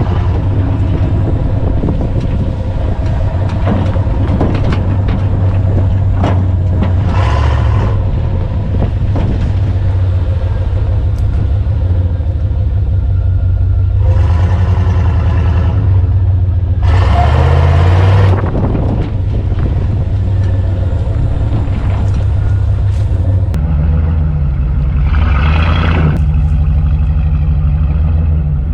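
Truck engine running under load while driven off-road, with several short bursts of revving, about four in all, the strongest near two-thirds of the way through.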